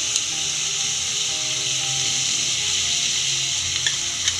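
Chopped onion, peas, tomato and green chillies frying in oil in an aluminium pot, a steady sizzle. A few light clicks come near the end.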